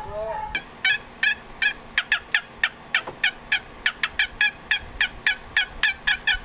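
Wooden box turkey call being stroked by hand, a steady run of short, sharp turkey yelps at about three to four a second.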